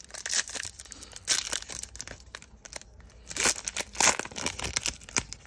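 Foil wrapper of a trading card pack being torn open and crinkled by hand: irregular crackling rustles with several sharper rips, the loudest about three and a half to four seconds in.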